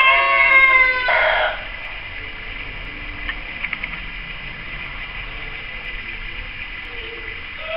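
A rooster crowing: one long, loud crow that ends about a second and a half in, followed by quiet outdoor background with a few faint clicks.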